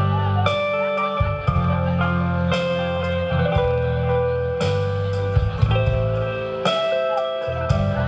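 Live blues-rock band playing an instrumental intro: bass guitar, drum kit with cymbal hits every second or two, and guitar holding long notes.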